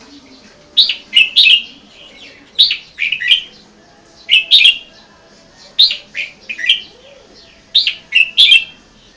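A caged red-whiskered bulbul singing: short phrases of three or four bright chirping notes, repeated five times with short pauses between them.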